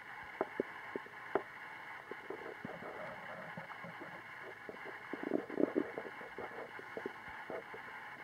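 Human stomach gurgling: a few short, sharp pops in the first second and a half, then a cluster of bubbly gurgles about five to six seconds in, over a faint steady hiss.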